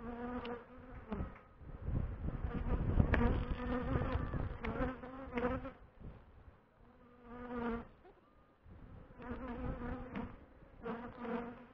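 Honeybees buzzing as they fly close past at the hive entrance, each buzz swelling and fading within a second or so, again and again. A low rumble comes through about three seconds in.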